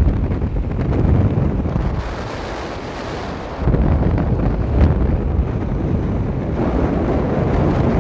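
Gale-force wind of over 40 knots buffeting the microphone with a heavy low rumble, over the wash and hiss of rough surf. The buffeting eases for about a second and a half near the middle, leaving mostly the surf's hiss, then comes back suddenly.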